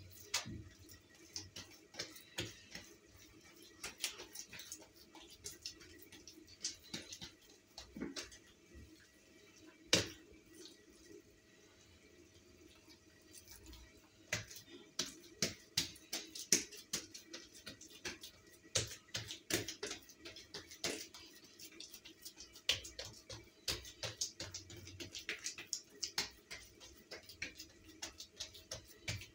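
Hands rolling and twisting strips of poppy-seed dough on a plastic-covered tabletop: scattered soft taps and clicks, coming thicker in the second half, over a faint steady hum.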